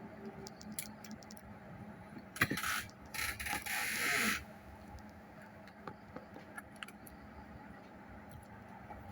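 Handling noise from a phone repair: scattered small clicks and taps, with two short scraping or rustling sounds a little after two seconds in and again around three to four seconds in.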